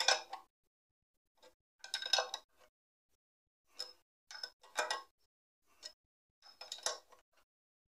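A hand spanner working the screw of a homemade cylinder-liner puller: short, irregular bursts of metallic clicking and clinking, about half a dozen, with quiet gaps between, as the tight liner is drawn out.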